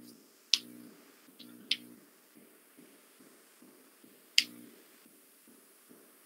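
Four sharp clicks over a quiet room tone, three in the first two seconds and one a little past four seconds, each followed by a brief low buzz.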